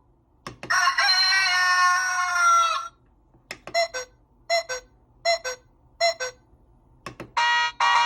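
A wireless call chime's speaker playing a rooster sound effect: one crow lasting about two seconds, then four short clucks. Near the end another chime tune begins.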